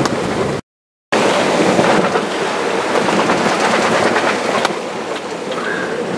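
Strong wind and rough, breaking sea rushing past a small sailing yacht beating to windward, with spray coming over the boat. The noise cuts out for about half a second near the start, then carries on loud and steady.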